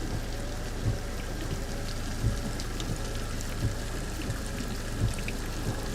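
Heavy rain falling, an even hiss with scattered drop ticks, and dull thuds about every second and a half, four times.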